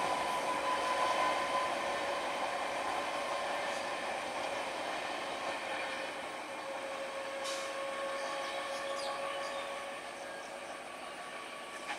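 12-coach EMU local train running on the rails, a steady electric whine over the wheel-and-rail noise, growing steadily fainter as the train pulls away.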